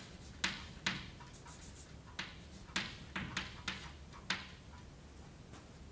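Chalk on a blackboard writing out numbers: a series of short, sharp taps as the chalk strikes and drags on the board, most of them bunched together in the middle of the stretch.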